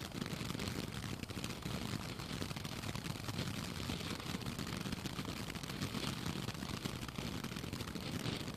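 Ground fountain firework (Great American Fireworks' Thomas Jefferson, G3001) spraying sparks: a steady hiss with rapid fine crackling.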